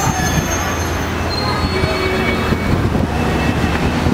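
City street traffic: a steady low rumble with high-pitched metallic squeals, strongest in the first second and fading, then returning faintly later on.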